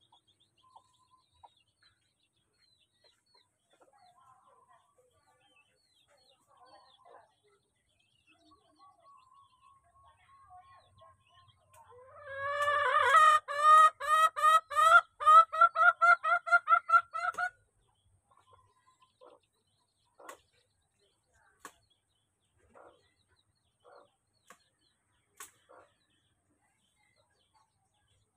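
A chicken calling in a loud run of short, repeated clucks, each rising in pitch, about three a second for some five seconds midway through. Faint chirps and ticks come before and after.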